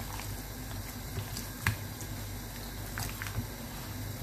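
Wet squelching of a hand kneading raw chicken breast strips in a yogurt-and-spice marinade in a plastic bowl, with a few sharp clicks, the loudest about halfway through, over a steady low hum.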